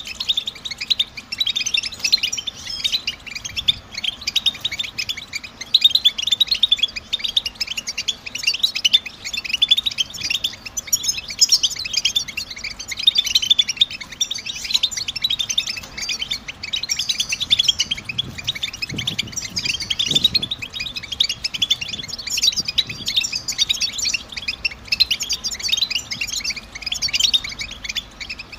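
European goldfinch twittering calls (the 'tbtib' chatter): a dense, unbroken run of quick high chirps and trills.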